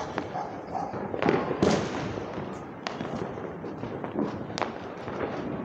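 Diwali firecrackers going off around the neighbourhood: several sharp bangs, the loudest about a second and a half in, over a steady rumble and crackle of more distant bursts.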